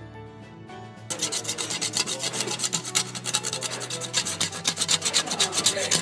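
Metal scraper scraping paint off an artist's palette in rapid repeated strokes, several a second, starting about a second in. Soft background music runs underneath.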